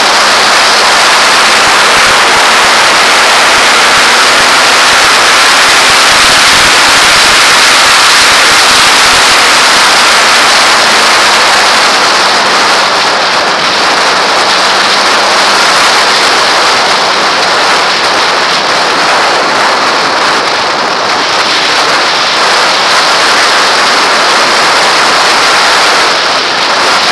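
Loud, steady rushing of wind over a helmet camera's microphone at motorway speed, with the Kawasaki ZX-6R's inline-four engine as a faint steady hum underneath that fades about halfway through.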